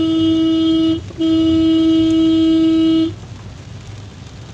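Car horn sounding in two long, steady blasts: the first ends about a second in, and after a brief gap the second is held until about three seconds in. Low traffic rumble remains after the horn stops.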